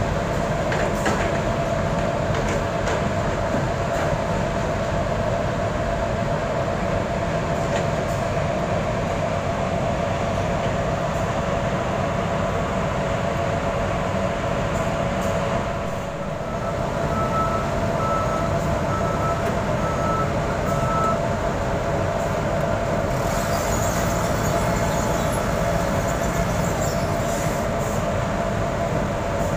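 Steady running of engines and machinery with a constant hum, at a forklift-and-truck loading site. Partway through, a vehicle's reversing alarm gives a short run of evenly spaced beeps.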